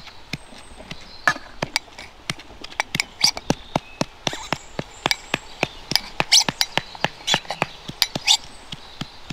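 Metal pestle knocking and scraping in a metal mortar and the mortar tapping against a steel plate as chilli-garlic paste is emptied out: sharp metallic clinks, irregular, a few a second.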